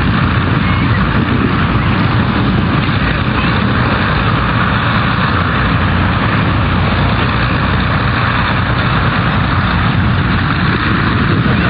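Heavy wind buffeting on the camera microphone, mixed with the steady drone of piston aircraft engines.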